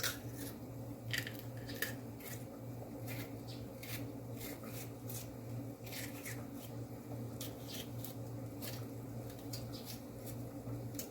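Kitchen knife cutting fresh herbs held in the hand, without a cutting board: crisp, irregular slicing clicks, about two a second, over a steady low hum.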